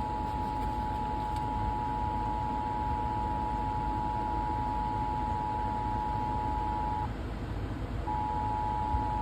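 Emergency Alert System attention signal, the steady two-tone alert tone of a SiriusXM EAS test, sounding over constant background noise. It cuts off about seven seconds in and starts again about a second later, as the header is repeated.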